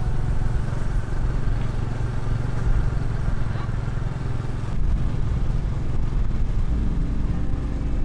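Motor scooter engine running steadily while riding, a low, even rumble.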